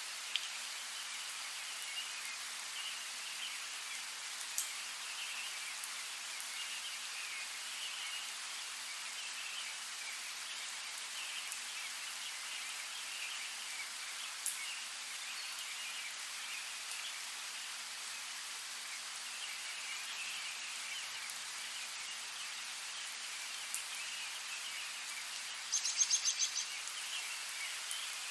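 Steady rain hiss with a few isolated sharp drip clicks. Near the end comes a short run of rapid, high-pitched ticks.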